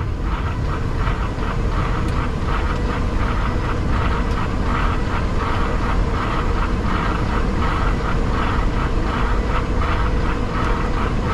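Cockpit noise of an Embraer E-190 in flight, a steady rush of airflow and turbofan engine rumble. Over it the windshield wipers swish back and forth in an even rhythm, about twice a second.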